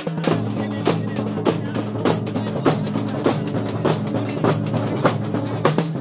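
A group of large double-headed bass drums beaten with sticks in a fast, driving folk rhythm. Heavy accented strokes come about every half-second, with rapid rolling strokes between them.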